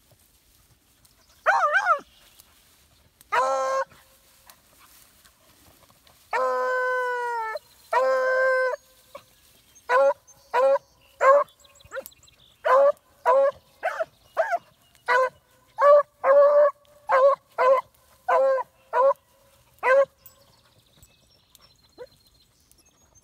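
A rabbit hound giving voice on a scent line: a few drawn-out bawls, one held for over a second, then a steady run of short chop barks, about two a second, from about ten seconds in.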